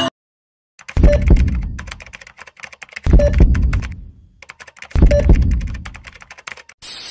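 Computer keyboard typing sound effect: four runs of rapid key clicks about two seconds apart, each opening with a heavy thud and trailing off. A steady static hiss comes in near the end.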